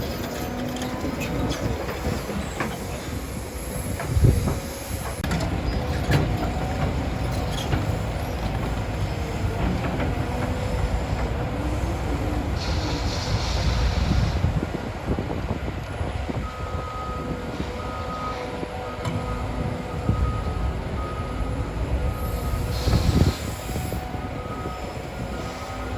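Caterpillar 325 hydraulic excavator digging: its diesel engine runs steadily under load, with metal clanks from the bucket and two short bursts of hiss, one about halfway through and one near the end. A faint beep repeats through the second half.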